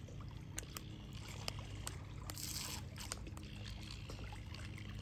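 Small lake waves lapping and trickling among shoreline rocks, with many short splashing ticks and a brief louder wash about halfway through, over a steady low rumble.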